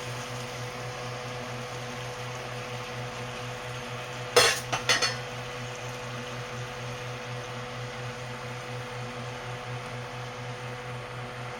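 Pots and metal utensils clattering two or three times in quick succession about four and a half seconds in, over a steady kitchen hum.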